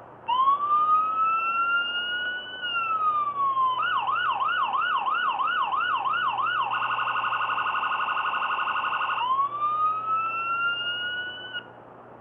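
Miniature electronic police siren module, powered by a 9-volt battery and played through its small speaker, cycling through its tones: a slow rising and falling wail, then about three seconds of quick yelp sweeps, then a very rapid warble, then the rising wail again, which cuts off suddenly near the end.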